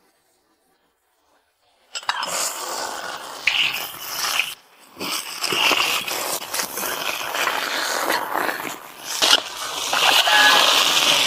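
Pickled mustard greens and chillies sizzling in hot oil as they are stir-fried in a large wok, a metal spatula scraping the pan, starting about two seconds in. Near the end water is ladled into the hot wok and the sizzle grows a little louder.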